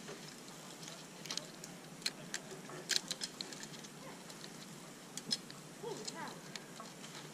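Irregular sharp clicks and ticks, with faint voices near the end.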